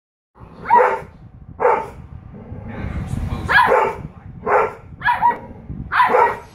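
A husky puppy and a golden retriever barking back and forth: about six short pitched barks, each under half a second, spaced roughly a second apart.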